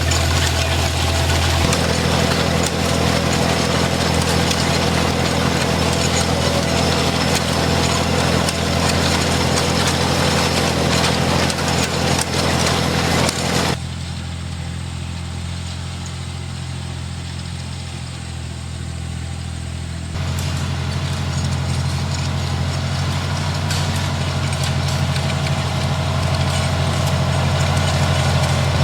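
Farmall 460 tractor's six-cylinder engine running steadily while pulling a hay tedder. About halfway through, the sound turns quieter and muffled for around six seconds, then returns to full.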